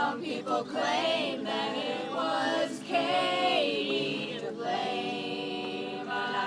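A small mixed group of voices singing together, holding and gliding between long notes.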